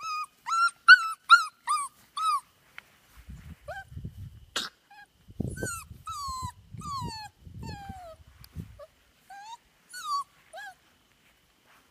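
Five-week-old Australian Labradoodle puppies whining and yelping in short, high, falling calls, a quick run of about six in the first couple of seconds, then more whines scattered through the rest. Some low rustling sits under the middle stretch, with one sharp click about four and a half seconds in.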